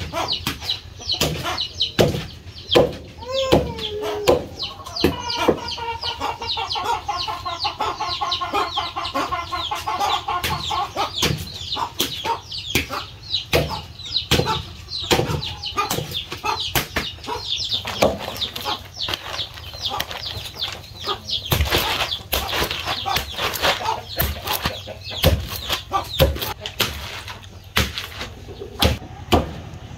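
Wooden pestle repeatedly pounding a mass of steamed glutinous rice for bánh dày, giving dull thuds throughout. Chickens cluck and call alongside, with a longer broken call from about five to eleven seconds in.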